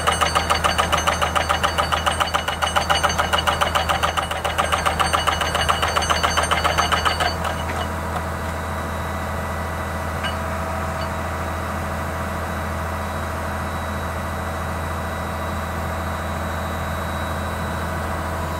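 Ingersoll Rand CM470 crawler drill running, its rock-drill hammer pounding in a rapid, even train of blows for about seven seconds, then stopping suddenly. After that only the rig's diesel engine runs at a steady idle.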